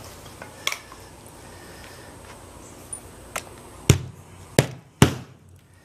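A hammer striking a roofing nail into asphalt shingles. A few light taps are followed by three hard blows about half a second apart near the end.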